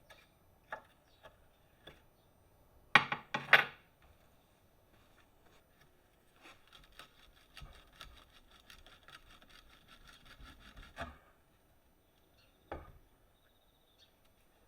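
Hand work on steel: a few light clicks, then three loud metal knocks close together about three seconds in. After that come several seconds of rapid, even scraping strokes, and a single knock near the end.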